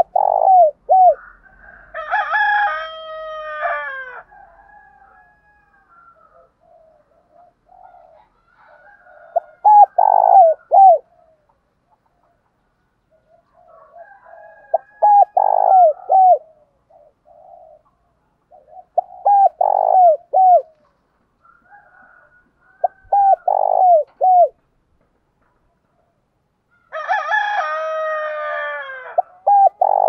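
Spotted dove cooing in short three- to four-note phrases, repeated every four to six seconds: the territorial song that Vietnamese keepers use to call in wild doves. Twice, a longer call of about two seconds, sinking in pitch at the end, sounds between the phrases.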